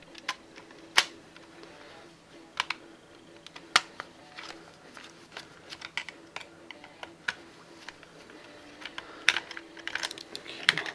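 Scattered sharp plastic clicks and clatter from a Nerf Elite Firestrike blaster's shell being unscrewed and pried apart, coming thicker near the end.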